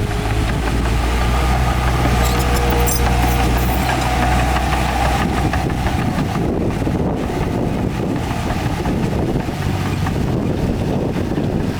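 Heavy diesel engine of earthmoving machinery running. It is a steady low drone for the first half, then gives way to rougher, noisier engine sound.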